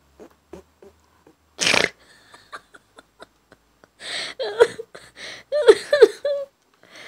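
Grey parrot vocalising: a run of soft clicks, a loud hissing rasp about two seconds in, then raspy, chattering calls with short pitch glides in the second half.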